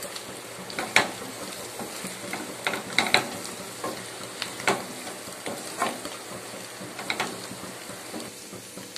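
Wooden spatula scraping and knocking against a non-stick kadai as chicken fry is stirred, a sharp scrape every second or so, over a steady sizzle. The chicken is dry-frying in oil and masala, its water already cooked off.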